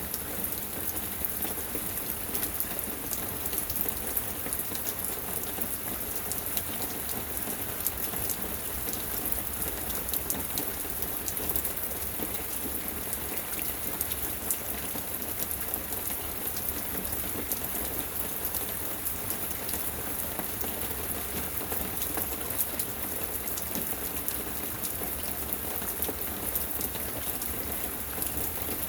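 Steady rain falling, an even hiss dotted with many small sharp drop hits.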